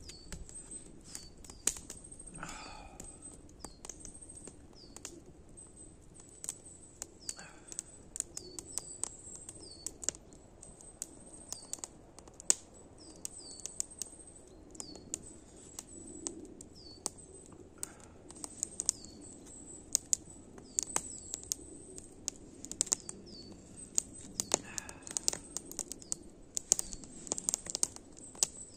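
Small campfire crackling with irregular sharp pops and snaps, while a small bird calls over and over with short, high, falling notes, about one a second.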